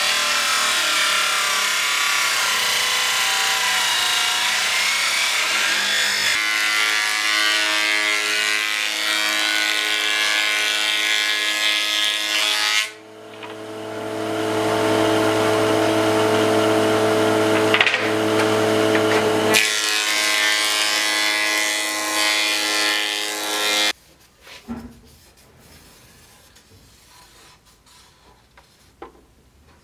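A table saw cuts through a wooden board with loud, steady cutting noise. After a short dip, a planer runs with a steady hum as wood is fed through. The machine stops abruptly about six seconds before the end, leaving only a few light knocks of wooden strips being handled on a workbench.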